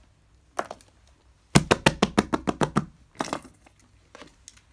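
Fidget toys being handled: a quick run of about ten sharp plastic clicks a second and a half in, with a few single clicks before and after.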